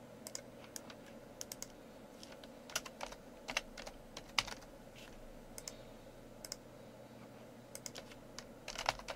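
Typing on a computer keyboard: short, irregular runs of keystroke clicks as words are typed into a form, over a faint steady hum.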